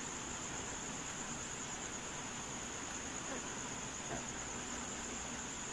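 Crickets chirring in the background: a steady, high-pitched trill that runs on without a break, with a few faint marker strokes on a whiteboard.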